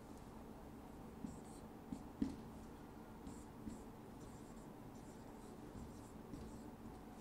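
Marker pen writing on a whiteboard: faint scratchy strokes with a few light taps of the tip, the sharpest about two seconds in.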